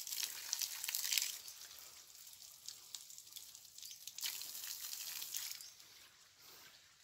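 Thin stream of water jetting from a small hole in a blue plastic water pipe and splashing onto the rocks and soil below, a hissing spatter, louder in the first second and again about four seconds in.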